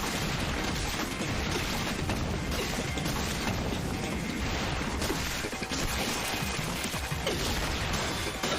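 Fight-scene soundtrack of an anime episode: a dense, steady din of clanking, crashing impact effects.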